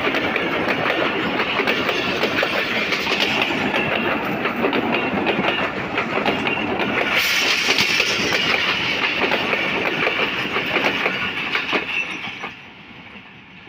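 Passenger train coaches passing close by at speed, their wheels clattering over fishplated rail joints in a dense run of clicks over a steady rumble. The noise turns brighter and hissier about halfway through, then drops away suddenly near the end as the last coach passes and recedes.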